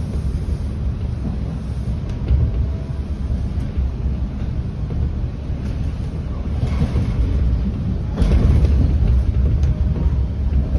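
Steady low rumble of a Bombardier T1 subway train running at speed, heard from inside the car, with wheel and track noise. It gets louder about eight seconds in.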